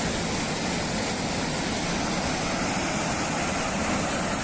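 Steady, loud rush of turbulent water, an even noise with no distinct events.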